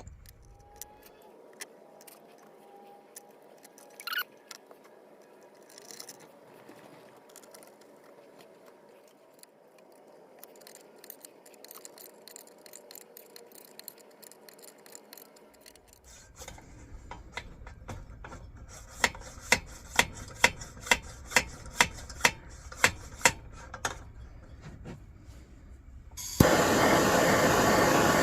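Coleman L427 lantern's fount being pumped in about ten quick strokes, clicking about twice a second. Near the end comes a loud, steady hiss of pressure escaping from the tank.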